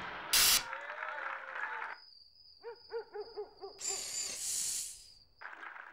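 An owl hooting in a quick run of short rising-and-falling notes about two and a half seconds in, over a steady high thin tone, with a second of bright hiss after it. A short, loud burst of noise comes just after the start.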